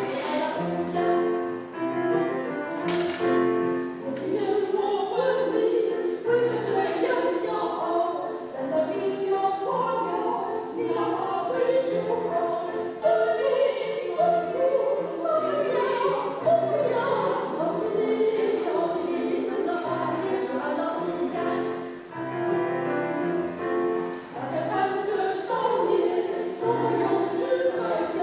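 A choir singing a song in harmony, with sustained notes over a steady lower part.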